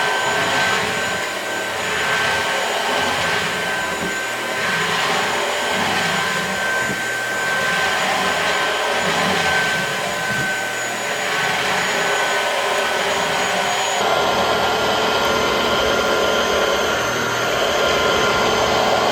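Jigoo V700 cordless stick vacuum running with a steady high whine over its suction noise. Its whine changes pitch about two-thirds of the way through.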